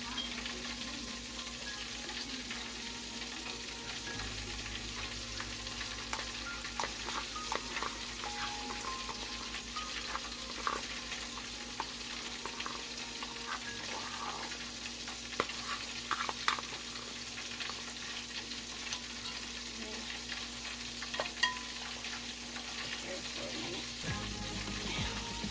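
Chicken frying in hot oil: a steady sizzle with scattered pops and crackles.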